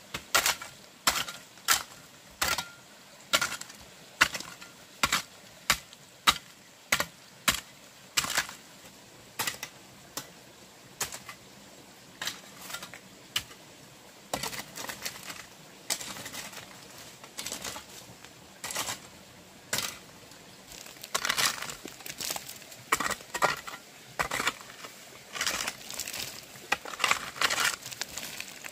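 A series of sharp knocks or taps of hard objects, about one or two a second for the first half, then coming in denser, louder clusters with some scraping near the end.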